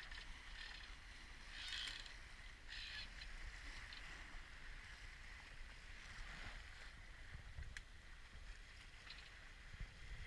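Faint wind and water noise aboard a Dufour 34 yacht under sail: a steady low rumble of wind on the microphone, with a soft hiss of water along the hull that swells twice early on.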